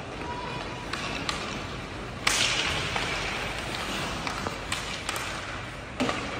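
Ice hockey sticks and puck on the ice: scattered sharp clacks, a loud crack about two seconds in that trails off in a hiss for about a second, and another sharp hit near the end, echoing in the rink.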